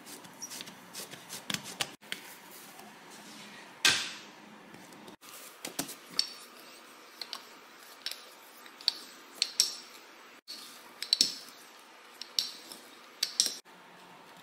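Scattered light knocks and clicks of hands, dough and a wooden rolling pin on a hard stone countertop as bread dough is pressed flat and rolled out. The loudest knock comes about four seconds in, and sharper clacks cluster in the second half.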